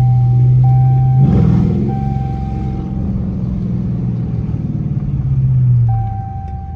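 Straight-piped Dodge Charger R/T's 5.7-litre HEMI V8 droning loudly at low speed, with a rough surge of throttle about a second in and easing off near the end. A high beeping tone repeats in long pulses behind it.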